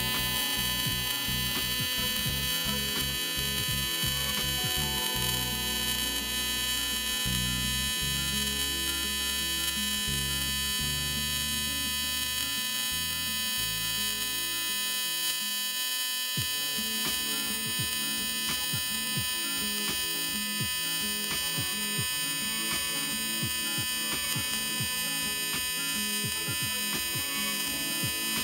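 AC TIG welding arc buzzing steadily while running a bead on thin .060 aluminum, with a low throbbing pulse about three times a second for much of the time.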